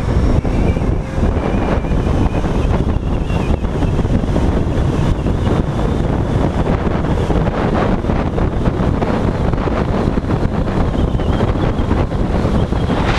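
Steady wind rush buffeting a helmet-mounted action camera's microphone on a motorcycle at road speed, with the bike's running and road noise mixed in.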